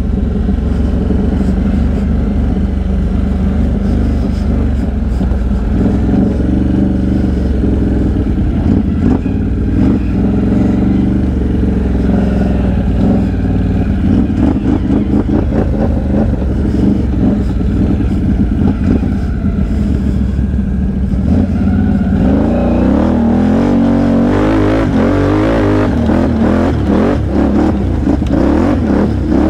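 Can-Am Outlander XMR 1000 ATV engine running while riding, its pitch rising and falling with the throttle. It revs harder and more often in the last several seconds.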